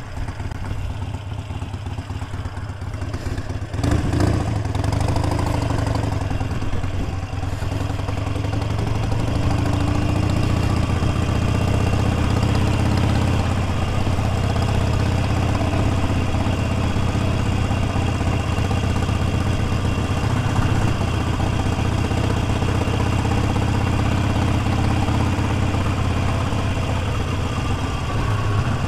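Motorcycle engine running under way, heard from the bike. About four seconds in there is a sharp knock, and the engine note rises as it speeds up and gets louder, then it runs steadily.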